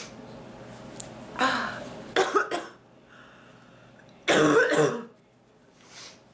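A woman coughing in fits. First a single cough, then a quick run of three or four short coughs, then a louder, harsher cough lasting over half a second.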